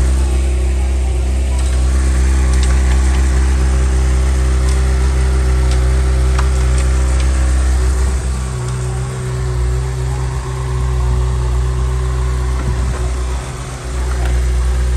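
Honda CBR sport bike's engine idling steadily, its level dipping briefly twice in the second half.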